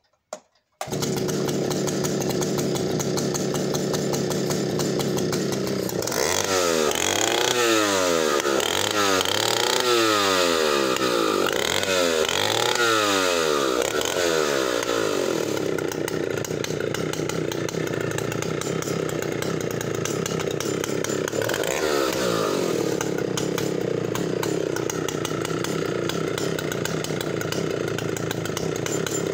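A vintage 90cc-class two-stroke chainsaw bursts into life about a second in and runs steadily, then is revved up and down in a quick series of about eight throttle blips before settling back to a steady run.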